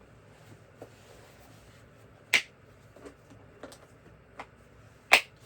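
Plastic screwdriver-set case being closed up: two sharp plastic snaps about three seconds apart, with lighter clicks and taps between them.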